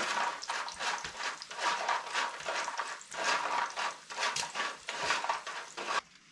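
Bacon and eggs sizzling and crackling in a cast-iron frying pan, a steady frying hiss full of small pops. It drops away suddenly near the end.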